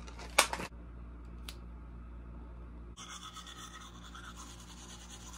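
A toothbrush scrubbing on teeth, starting about three seconds in; before it, a single sharp tap about half a second in over a low hum.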